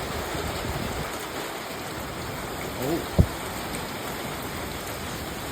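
Heavy hurricane rain and wind making a steady wash of noise, with a single sharp thump a little over three seconds in.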